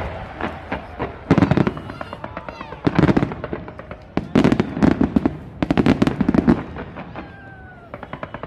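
Fireworks display firing from a tower: volleys of sharp bangs and crackling come every second or two, busiest in the middle, and ease off briefly before a rapid crackle starts up again near the end.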